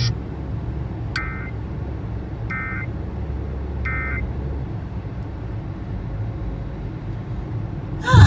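Emergency Alert System end-of-message data bursts: three short, identical buzzy electronic chirps about a second and a half apart, marking the end of the alert message, over a low hum that stops after the third chirp. A sudden loud burst comes right at the end.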